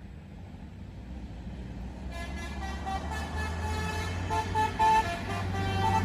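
Bus engine rumbling and growing steadily louder, with the tones of a basuri musical bus horn coming in about two seconds in and a couple of short, loud horn blasts near five seconds in.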